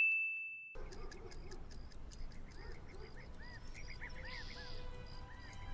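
A bell-like ding rings out as a single fading tone and cuts off within the first second. It is followed by a faint bed of regular light ticks and small chirps.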